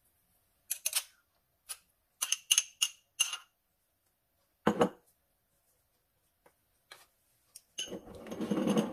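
A metal spoon clinks and scrapes against a small bowl several times while sour cream is scooped out, with a duller knock a little before five seconds. Near the end, a wooden spatula stirs and scrapes through the liquid sauce in a nonstick frying pan.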